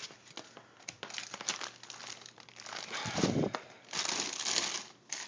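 Packaging crinkling and rustling in irregular bursts with small clicks as a subwoofer is handled and unwrapped.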